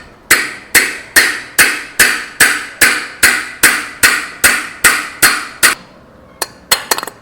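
Hammer striking a ceiling fan's metal housing to knock it apart and reach the jammed, grease-dried bearing: a steady run of about a dozen ringing blows, roughly two and a half a second, then a few lighter, quicker taps near the end.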